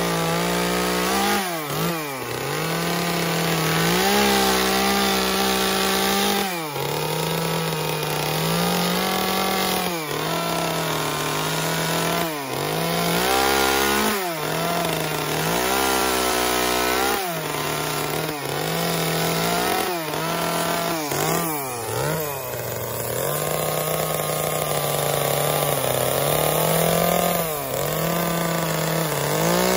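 Chainsaw cutting into a wooden carving, its engine speed repeatedly dropping and climbing back every second or two as it bites into the wood and the throttle is opened again. About two-thirds of the way through it holds a steady high speed for several seconds.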